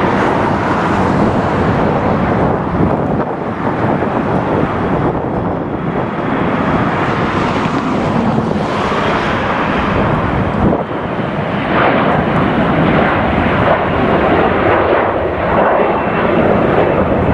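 Jet airliner engines, loud and continuous, a dense steady roar with no break.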